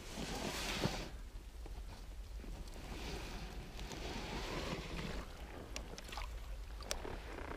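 Water lapping and light wind around an inflatable boat, swelling and easing, with a few sharp light clicks near the end as the lure and rod are handled.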